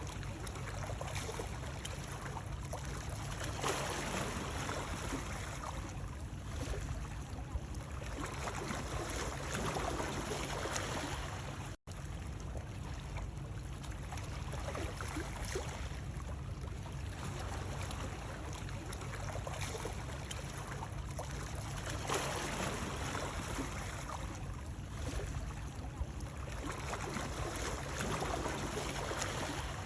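Ocean waves washing in, swelling and easing about every six seconds over a steady low rumble, with a split-second dropout about twelve seconds in.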